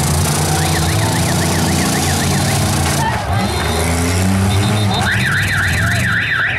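Demolition derby car engines running in a low steady drone. Over it, a warbling alarm-like tone swings up and down nearly four times a second, faint at first and loud from about five seconds in.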